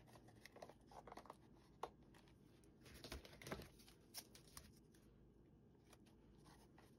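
Near silence with a few faint rustles and small ticks: blue painter's tape being handled and pressed onto cardboard.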